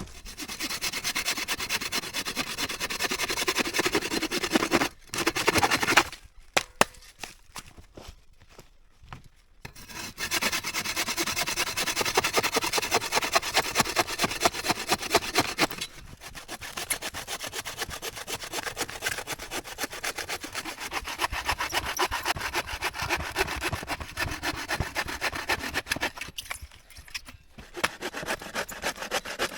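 Hand saw cutting through wood in long runs of steady strokes, stopping for a few seconds about six seconds in and briefly again near the end.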